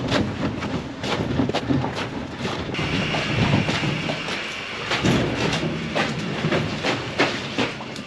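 Footsteps crunching through snow and onto wet concrete, over a steady low mechanical rumble. A steady high hiss starts about three seconds in.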